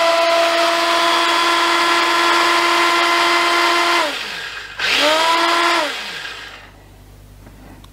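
Parkside PBSG 95 C3 drill bit sharpener's 95 W motor running with a steady whine, then switched off about four seconds in, its pitch falling as it spins down. It is switched on again just before five seconds, whining up to speed, and is switched off a second later, winding down once more.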